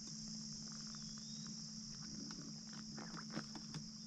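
Steady insect chorus, an even high-pitched drone, with scattered light clicks.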